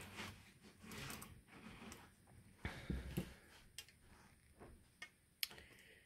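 Faint handling noise: soft rustles and a few small clicks as hands move jewelry wire against a plastic ruler and take up pliers, with one sharper tick about five seconds in.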